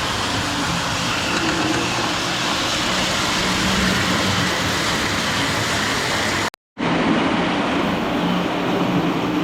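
Lionel prewar standard gauge electric locomotive running on its track: a steady motor hum and rumble of wheels on rail, with a brief break in the sound about six and a half seconds in.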